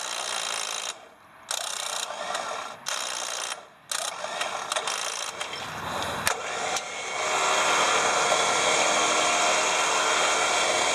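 Smittybilt electric winch motor and gear train running in short stop-start bursts as the solenoid clicks in and drops out, then running steadily from about seven seconds in. The winch keeps cutting in and out, which the owner traces to a voltage drop at a poorly grounded solenoid cover.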